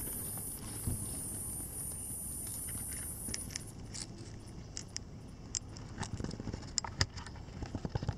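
Outdoor ambience: a steady high-pitched hiss or drone that cuts off suddenly about three and a half seconds in, with scattered soft clicks and rustles that come more often in the second half.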